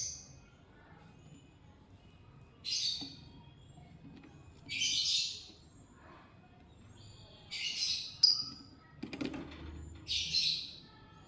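Lovebirds giving about five short, harsh chirping calls a couple of seconds apart, with a sharp click about eight seconds in and a knock about nine seconds in.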